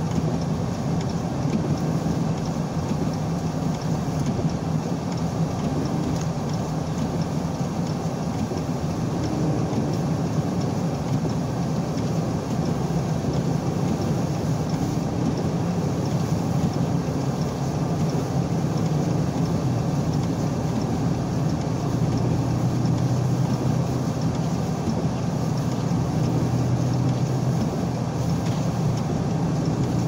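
Steady car cabin noise while driving: engine and tyre-on-road drone with a low steady hum, heard from inside the car.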